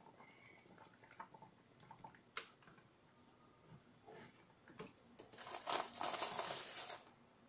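A metal spoon working miso paste in a wire-mesh miso strainer dipped in a pot of soup: a few sharp clicks of spoon on the metal, then a longer rough scraping from about five to seven seconds in as the paste is pressed and stirred through the mesh.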